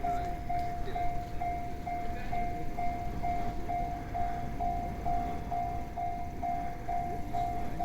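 Japanese level-crossing warning bell ringing: an electronic tone repeating about twice a second, the signal that a train is approaching and the barriers are down. A low rumbling noise runs underneath.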